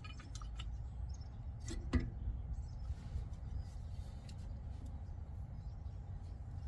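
A brake caliper piston compression tool being worked to push the caliper piston back into its bore: faint metallic clicks, with a sharper click about two seconds in, over a steady low background rumble.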